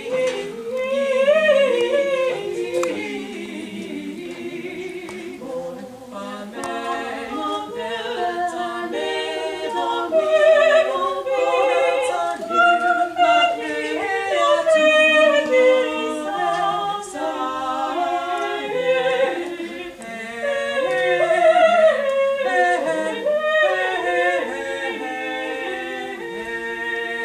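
A group of voices singing a cappella, a slow processional song of held notes that move step by step.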